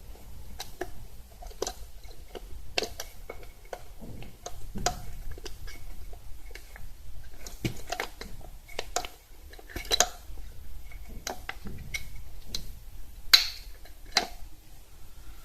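Irregular clicks, taps and knocks of hand tools and metal and plastic parts being handled during clutch slave cylinder removal, with one louder knock near the end.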